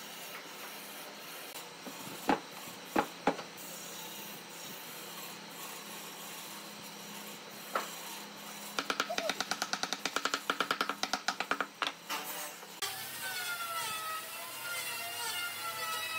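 Heavy pine blocks and boards knocked against each other as they are set onto a stacked table base: three sharp wooden knocks early, another near the middle, then a quick run of clicks. Near the end a wavering tone rises and falls in the background.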